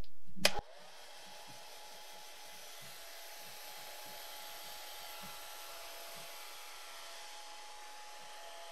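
A sharp click, then a hand-held hair dryer blowing steadily with a faint whine, drying the wet watercolor paint.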